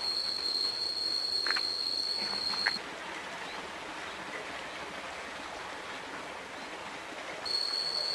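A steady, high-pitched insect drone with a constant pitch. It stops abruptly about three seconds in and leaves only a faint outdoor hiss, then comes back near the end.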